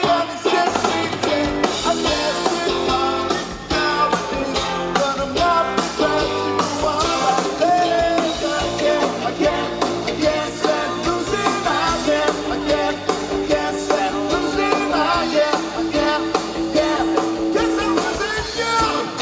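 Live rock band playing in a reggae-tinged rock style, with lead vocals over electric guitar, bass and drums. A long sung or sustained note is held near the end.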